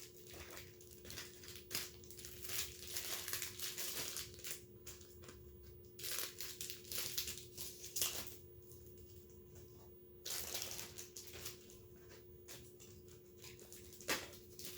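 Packaging being crinkled and torn open by hand, in irregular rustles and clicks with a couple of longer tearing bursts, over a steady faint hum.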